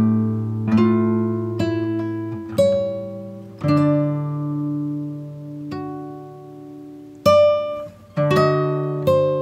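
Background music of plucked acoustic guitar, with single notes and chords ringing and fading, some held for a second or two.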